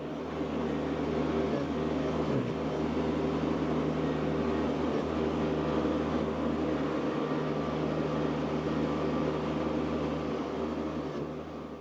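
Engine running steadily at a constant speed, with a brief dip about two seconds in.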